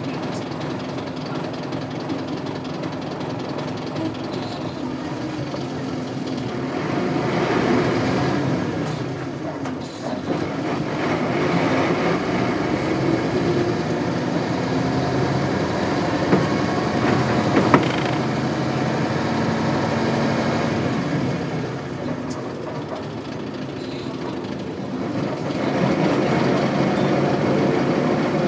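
Isuzu 8PE1 V8 diesel engine of an Isuzu Cubic KC-LV380L city bus running under way. The engine note swells and falls back several times, with a brief drop about ten seconds in and a couple of sharp clicks in the middle.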